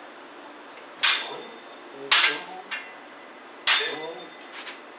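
Fencing sabre blades clashing four times in a slow drill: sharp metallic strikes, each with a brief ring, about a second in, twice more near the middle, and once more shortly after.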